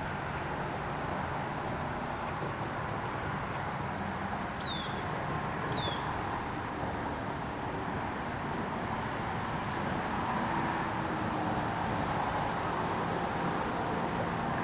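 Steady road-traffic noise from a nearby bridge, with a faint low hum. A bird gives two short, falling chirps about a second apart near the middle.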